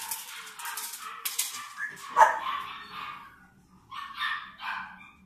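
A young puppy barks and yips while tugging at a rag. Scuffling, rattling noise from the tug comes first. The loudest bark is about two seconds in, and two shorter yips follow about four seconds in.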